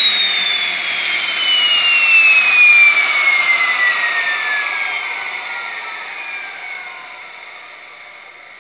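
Tiernay TT10 gas turbine engine spooling down: a high whine that falls steadily in pitch and fades over several seconds as the rotor coasts down.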